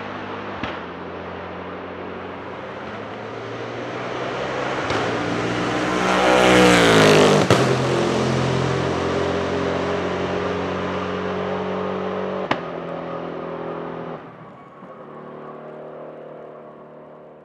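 Bentley Continental GT3 race car's twin-turbo V8 running at speed on track, growing louder and shifting in pitch as it passes about six to seven seconds in, then fading away, with a few sharp cracks along the way.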